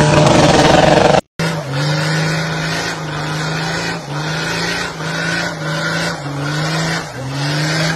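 A pickup's engine running hard under load, cut off abruptly about a second in. Then a Nissan Patrol's engine revving up and dropping back over and over, about once a second, as it spins its wheels in a smoky burnout.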